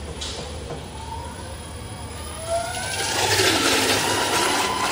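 Electric motor of a liquid-soap homogenizer-mixer speeding up with a rising whine. From about three seconds in, it is joined by loud churning of the liquid in the stainless-steel tank.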